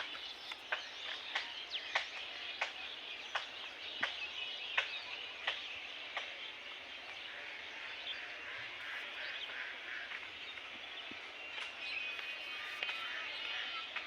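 Birds chirping and calling, with sharp clicks repeating about every two-thirds of a second in the first half and short high trills later on.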